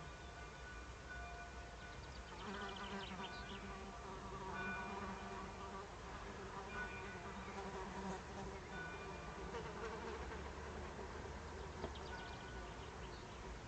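A steady, quiet buzzing with thin whining tones that come and go.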